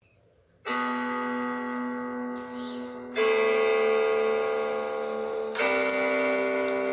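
Instrumental music from an original composition: three sustained chords, the first entering about half a second in and the next two at about three and five and a half seconds.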